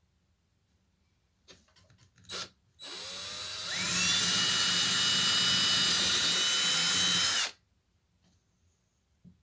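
Power drill starting slowly, speeding up to a steady high whine about a second later and running for roughly four seconds before stopping suddenly: drilling a hole into sheetrock for a wall anchor. A few light clicks and handling noises come just before it.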